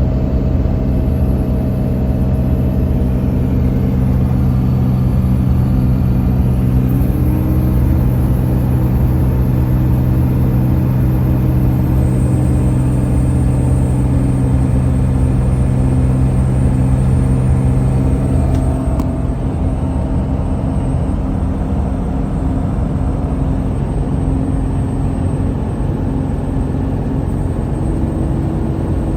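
Car engine running with a loud, steady buzzing hum, a noise that began after the engine fan clutch was replaced. About two-thirds of the way through, the steady hum drops away and a rougher, slightly quieter engine noise carries on.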